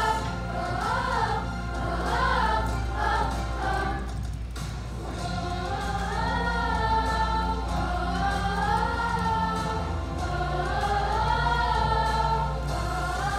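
Middle-school chorus of boys' and girls' voices singing together, with a brief dip about four seconds in.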